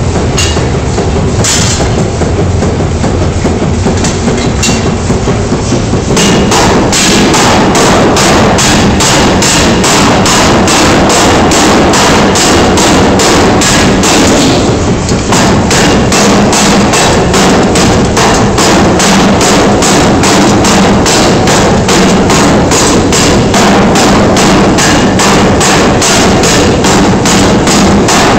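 Massey power hammer forging a red-hot ball: for the first few seconds the machine hums with only a few single blows, then about six seconds in it settles into rapid, evenly spaced blows on the hot steel, with a brief pause about fifteen seconds in before the blows resume.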